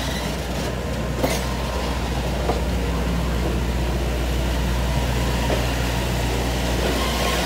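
Passenger train coaches rolling slowly past at close range: a steady low rumble of wheels on rail, with a few sharp clicks from the wheels and couplers.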